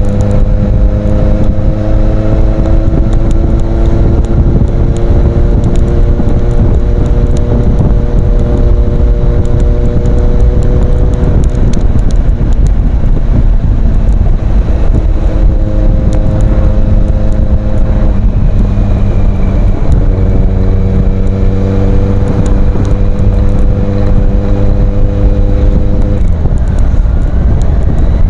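Kawasaki Z800's inline-four engine running through an Ixil aftermarket exhaust at fairly steady revs. Its note shifts pitch a few times and drops near the end.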